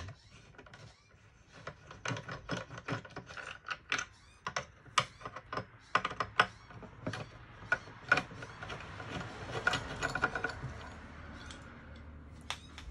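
A screwdriver undoing the screws that hold a cupboard door latch, making an irregular run of clicks and ticks with a scraping stretch near the end.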